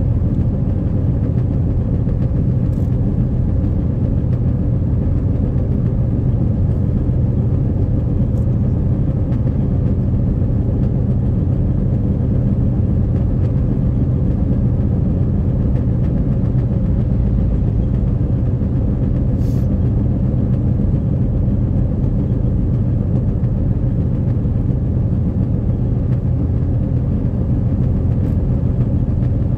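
Steady low rumble of a car's engine and tyres on a wet motorway, heard from inside the moving car's cabin, with a few faint ticks.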